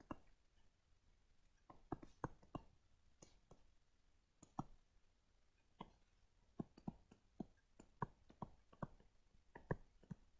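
Faint, irregular clicks and taps from handwriting being entered on a computer, a few a second, with near silence in between.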